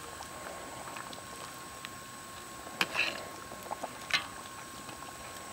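A metal ladle scooping broth in a steel wok of simmering soup, knocking sharply against the pan twice, about a second and a half apart, over small scattered crackles.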